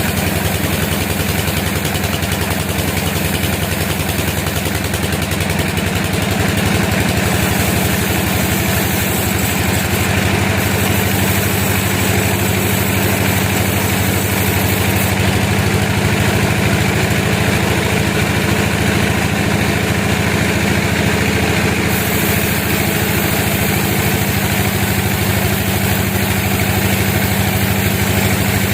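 Sawmill machinery running steadily: an engine drone with a fast, even pulse and no clear change in pace.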